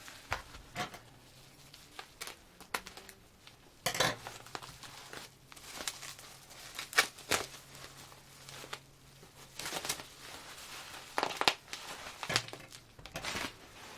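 Plastic packaging of a CD album crinkling and tearing as it is unwrapped by hand, in irregular rustles and crackles with a few louder rips.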